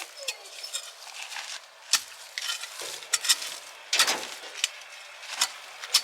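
Rustling and crackling of leaves, stems and soil while turmeric plants are harvested by hand, with several sharp snaps spaced irregularly. The loudest snap comes about four seconds in.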